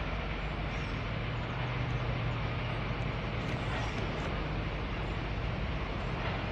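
Norfolk Southern EMD SD70ACe diesel-electric locomotive, with its 16-cylinder two-stroke EMD 710 engine, running steadily as it pulls a double-stack intermodal train: a constant low engine drone over the rumble of the train.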